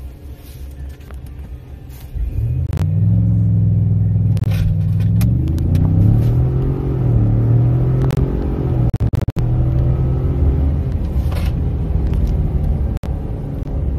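Ford 3.5-litre EcoBoost twin-turbo V6, heard from inside the F-150's cab, idling, then revs jump and hold about two seconds in before the truck accelerates hard from a standstill at full throttle, the engine note climbing through the gears with a brief dip at a gearshift near nine seconds. It runs on newly replaced cam phasers.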